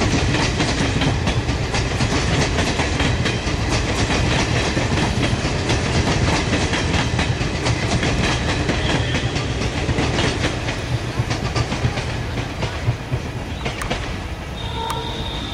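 Passenger coaches of an express train rolling past at speed, their wheels clicking steadily over the rail joints. The rolling eases as the last coach goes by, and a brief high-pitched call sounds near the end.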